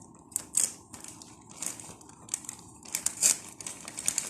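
Packaging crinkling and rustling in irregular bursts as hands open a gift parcel.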